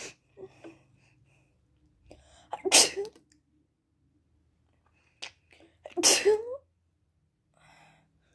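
A person with a head cold sneezing twice, about three seconds apart. Each sneeze follows a short in-breath and comes out wet, spraying.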